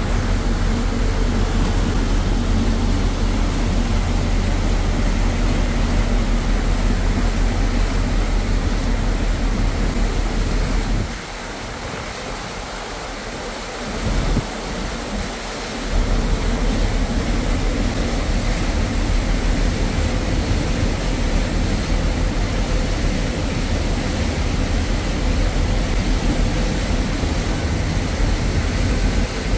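Wind buffeting the microphone over the rushing wash of a ferry's wake and the steady hum of its engines, heard from the open stern deck. The deep wind rumble drops away about eleven seconds in and comes back a few seconds later.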